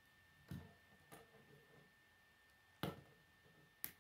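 Plastic K'nex rods and connectors clicking and knocking as they are handled and snapped together: four short sharp clicks, the loudest two near the end.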